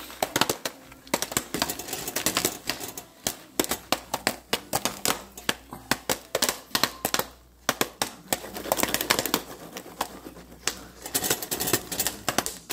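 Jiffy Pop popcorn popping inside its puffed-up foil pan: quick, irregular sharp pops, many each second, with short lulls around three and seven seconds in.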